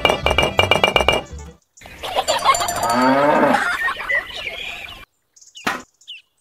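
Background music with a plucked, clinking rhythm stops about a second and a half in. A farm-animal call follows for about three seconds, then a single sharp click near the end.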